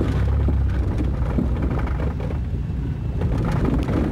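Ford Taurus heard from inside the cabin while driving: a steady low engine and road rumble, with faint scattered knocks and rattles.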